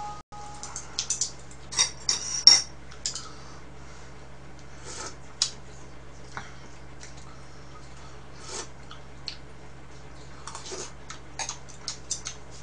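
Chopsticks clicking and tapping against bowls and plastic food containers while someone eats, in scattered short clicks, the loudest about two and a half seconds in.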